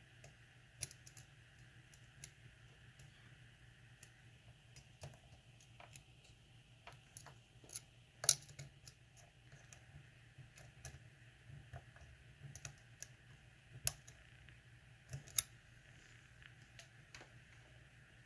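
Irregular small metallic clicks and ticks of a lock pick and tension wrench working the pins of a pin-tumbler lock, with a few sharper clicks standing out. The lock is held in a false set.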